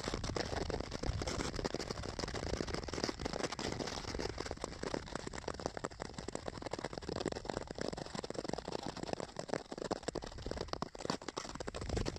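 Nordic skate blades gliding over rough natural lake ice: a continuous crackling scrape.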